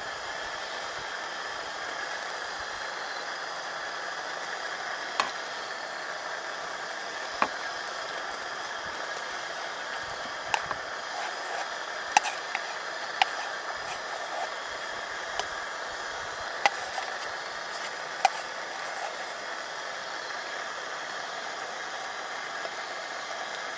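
Wood fire burning: a steady hiss with sharp single pops every second or two.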